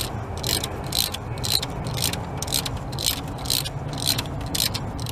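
Socket ratchet on a long extension with a 10 mm deep socket, worked in quick, even strokes: a burst of pawl clicks about twice a second as it loosens an EGR valve bolt.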